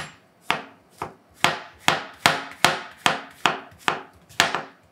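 Kitchen knife slicing a mushroom on a wooden cutting board: about a dozen sharp knocks of the blade on the board, roughly two and a half a second.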